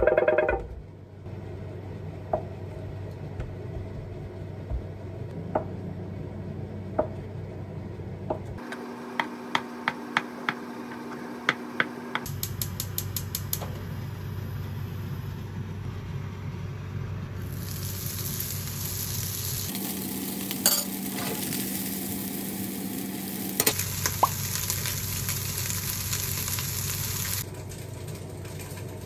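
Home kitchen cooking sounds in several short cuts: quick clicks and taps of utensils on dishes, then a longer stretch of food sizzling in a pan.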